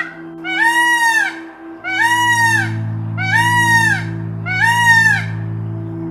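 An animal call repeated five times, about a second apart, each a short call that rises and then falls in pitch. Background music with a low steady drone plays underneath.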